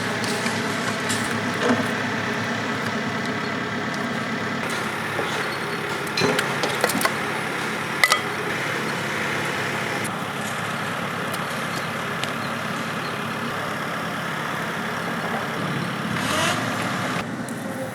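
An engine running steadily, with a few sharp knocks about six and eight seconds in.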